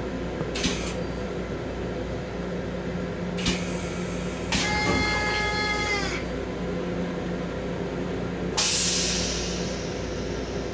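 M7 electric railcar running, a steady rumble and hum heard from inside its restroom. Short hisses come at about one and three and a half seconds in. Midway a pitched tone sounds for about a second and a half and bends down as it ends, and about eight and a half seconds in a sudden hiss starts and fades away.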